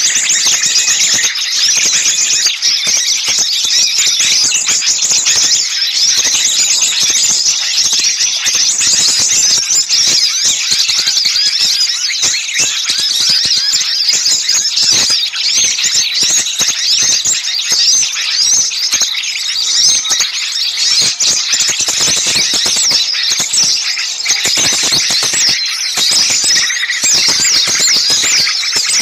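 Bird-luring recording of many small songbirds calling together in a dense, noisy, agitated chatter. It is a continuous stream of rapid, high-pitched squeaky notes with no pause.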